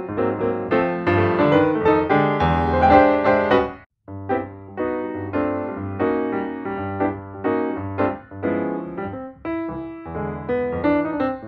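Background piano music: a quick run of notes that breaks off briefly about four seconds in, then carries on.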